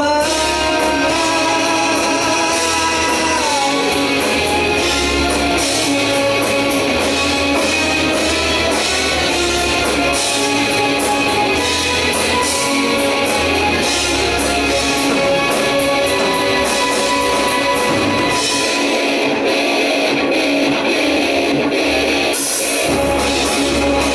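Live rock band playing an electric-guitar-led passage over bass and drum kit. About 22 s in, the bass drops out briefly with a burst of cymbal-like high sound before the band comes back in.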